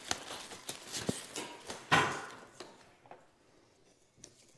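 Wrapped plywood cabinet panels and packaging being handled: scattered light knocks and rustling, with one louder bump about two seconds in, then near-quiet handling.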